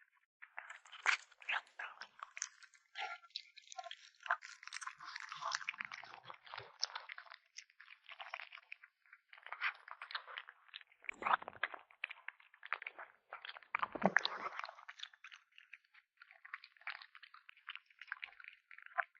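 A kitten chewing meat, with irregular wet crunches, bite after bite; two crunches, about 11 and 14 seconds in, are louder and deeper than the rest.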